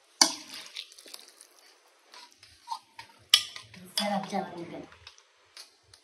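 Stainless steel pot and metal spoon clinking and scraping as rice is stirred and water is poured in from a steel cup. Two sharp metal clinks, one just after the start and one just past halfway, then a louder stretch of pouring and stirring about four seconds in.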